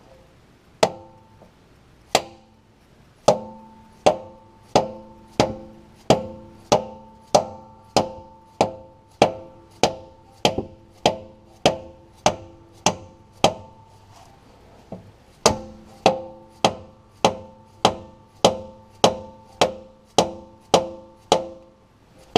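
Hammer blows on a homemade PVC bushing driver, tapping a new tailshaft bushing into a Muncie four-speed's tail housing. The blows come steadily at about one and a half a second, each with a short ring, and stop for about two seconds partway through before resuming.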